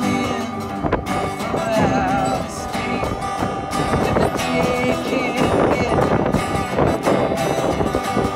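Live acoustic country-folk music: two acoustic guitars and a mandolin strumming together, with a neck-rack harmonica carrying a wavering melody line and no singing.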